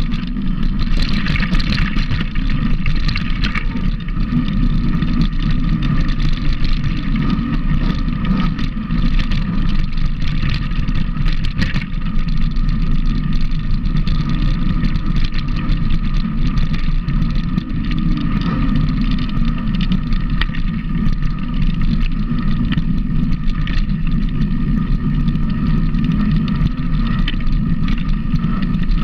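Steady low rumble of a running vehicle engine, its pitch nearly unchanged throughout.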